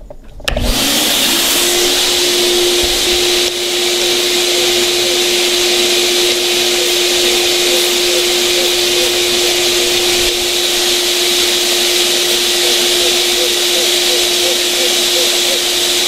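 Shop vacuum switched on, its motor spinning up within about a second, then running steadily with a constant hum. It is rigged as a blower, pushing air back through the exhaust system for a soapy-water leak test of the turbo manifold joints.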